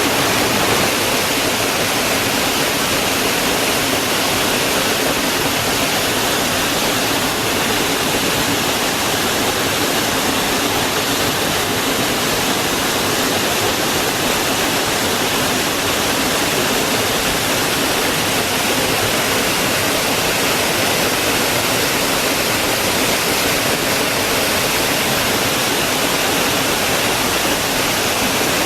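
Waterfall pouring steadily: a continuous, even rush of falling water.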